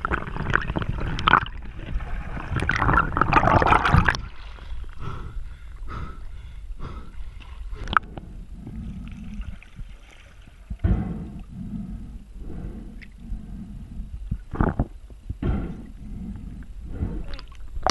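Underwater noise picked up by a diving camera: water rushing and gurgling, loudest in the first four seconds, then quieter, with a few sharp knocks and clicks scattered through the rest.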